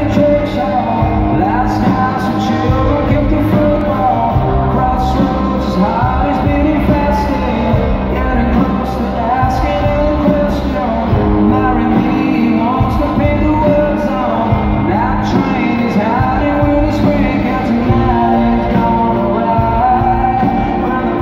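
Live rock band playing a mid-tempo song: a male voice singing over electric guitars and drums, heard from the crowd in the hall.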